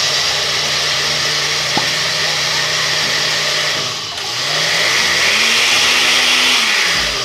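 Countertop blender running, grinding rolled oats into flour. It runs steadily, dips briefly about four seconds in, then runs louder before stopping near the end.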